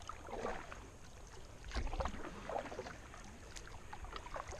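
Canoe paddle strokes in lake water: irregular splashing and dripping as the blade dips and pulls, about three strokes, with a couple of light ticks near the end.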